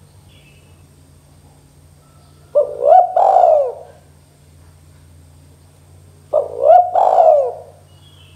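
Spotted dove cooing: two coo phrases about four seconds apart, each of three notes ending in a longer falling one.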